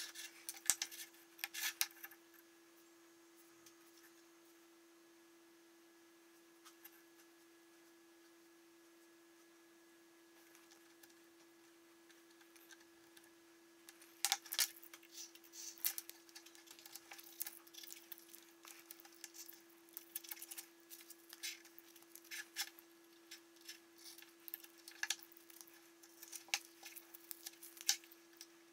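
Light clicks and taps of wooden dowels and a wooden block being handled on a workbench. There are a few in the first two seconds, then they come often from about halfway through, over a steady faint hum.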